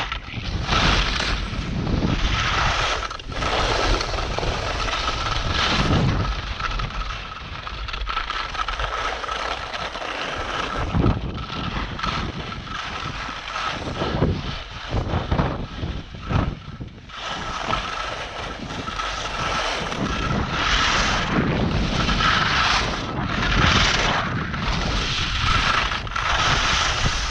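Wind rushing over the microphone of a camera worn by a downhill skier, mixed with the hiss and scrape of skis running over firm snow. It rises and falls in repeated surges, with a faint steady whistle running through it.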